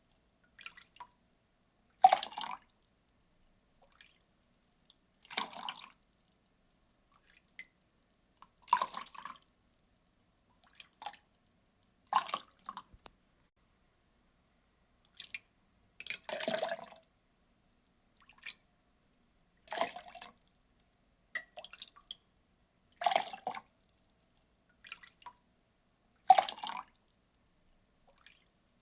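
Water being poured in short splashes. The main splashes come about every three seconds, each lasting under a second, with fainter splashes in between.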